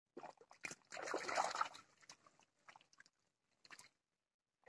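Water splashing and a mesh fishing keep net being handled in shallow water, with a burst of sloshing about a second in and a few faint knocks after it.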